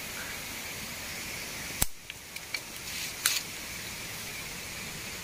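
Steady rushing noise of a waterfall, with a sharp click a little under two seconds in, a few faint ticks after it, and another click a little past three seconds.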